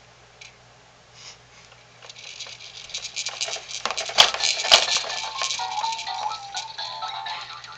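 Baby jumper bouncer rattling and clattering as the baby bounces in it: plastic toys and a bead rattle shaking in quick, busy rattles that start about two seconds in, with two sharp clicks in the middle. A short run of high tones sounds near the end.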